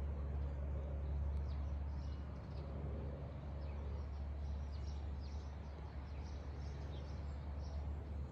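Small birds chirping now and then over a steady low rumble of outdoor background noise.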